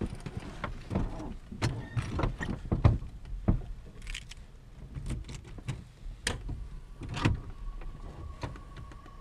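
Irregular clicks, knocks and rustles of a pilot handling controls and gear in a light aircraft's cockpit, with no engine running. A thin steady tone comes on about two-thirds of the way through and holds.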